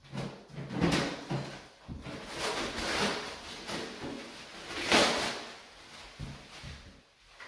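Clear plastic shrink-wrap crinkling and rustling in irregular bursts as it is pulled off a white wire closet shelf, the loudest rustle about five seconds in.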